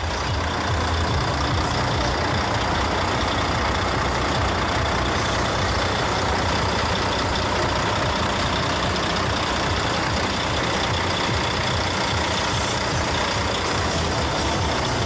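Heavy truck diesel engine idling, a loud, steady low rumble.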